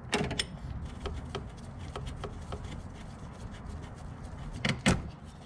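Light clicks and taps of hand tools and metal fittings being worked around a car's brake master cylinder and brake lines, with a louder knock just after the start and a sharp, loud clack near the end.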